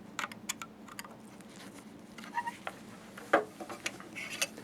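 Scattered light clicks and taps of a small screwdriver and hand tools on the metal chinrest bracket and its slotted screws, one sharper knock about three seconds in.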